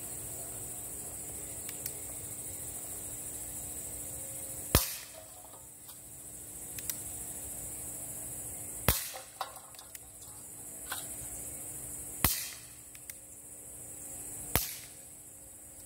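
Schofield-style CO2 BB revolver fired four times, each shot a sharp pop with a short tail: the first about five seconds in, the next three about four, three and two seconds apart. A few faint clicks fall between the shots, over the steady high chirring of crickets.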